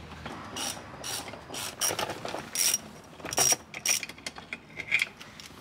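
A screwdriver and metal parts working in a car's centre console, clicking and scraping against plastic trim in irregular short bursts, a few with a thin high ring.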